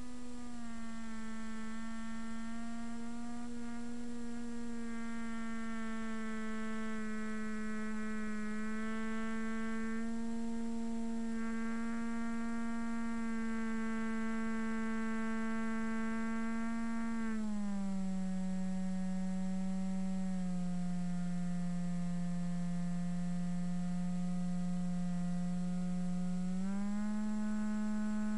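Electric motor and propeller of a HobbyKing Bixler RC plane, heard from its onboard camera, running with a steady whining hum. The pitch drops in a step about two-thirds of the way through, as the motor slows, and rises back near the end.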